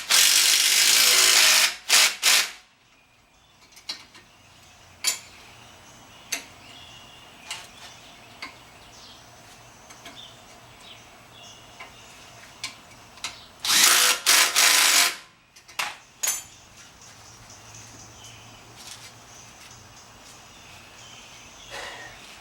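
A power tool run in two loud bursts of under two seconds each, one at the start and one about fourteen seconds in, most likely driving home the brake bolts. Scattered clicks and clinks of hand tools and parts come between the bursts.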